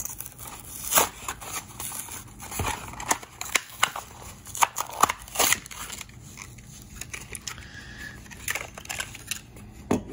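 Stiff clear plastic blister of a Hot Wheels card pack crackling and clicking as it is prised by hand off its cardboard backing, which tears. The sharp crackles come at an irregular pace, several of them louder than the rest.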